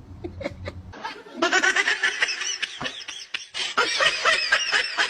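A person laughing hard in quick repeated bursts, starting about a second and a half in after a few faint clicks.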